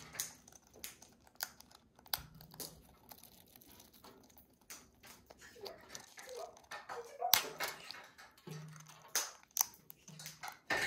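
An African grey parrot cracking pine nut shells with its beak: irregular sharp cracks and crunches, the loudest about 7 and 9 seconds in.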